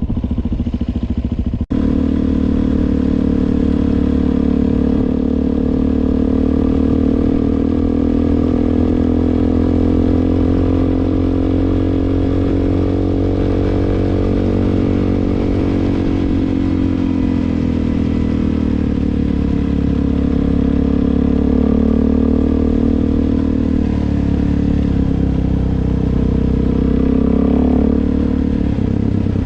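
Suzuki DR-Z400's single-cylinder four-stroke engine running under way, its pitch rising a little around the middle and then easing down and wavering. There is a brief cut-out near the start.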